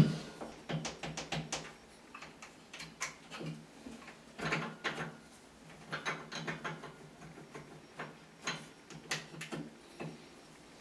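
Scattered clicks, taps and light scrapes of a chrome towel radiator and its brackets being handled and shifted against a tiled wall while it is leveled and marked, opening with a sharper knock.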